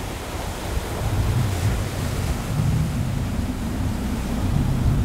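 Steady rushing wind and sea noise with a strong low rumble.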